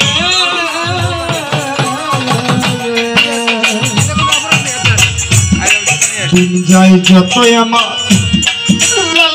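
A man sings a Bengali folk song into a microphone, his voice gliding and bending, with a keyboard instrument holding steady notes and a rattling percussion beat.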